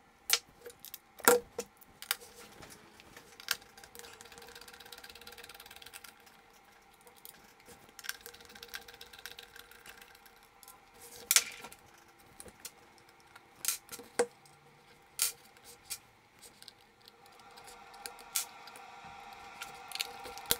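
Small screws being undone from a smart speaker's plastic housing and set down on a desk: scattered sharp metallic clicks and light taps of screws, tool and plastic parts being handled, the loudest about a second in and again about eleven seconds in.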